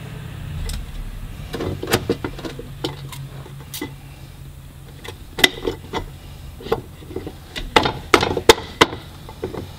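Scattered knocks and clinks of metal as a side bearing end cap is handled and seated by hand on a Subaru R180 differential housing, with a quick run of sharper taps near the end. A low, steady hum runs underneath.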